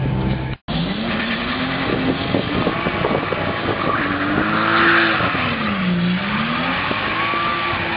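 A car engine revving hard, its pitch rising, dipping and climbing again, with tyres squealing on tarmac at the peaks. The sound cuts out briefly just after half a second in.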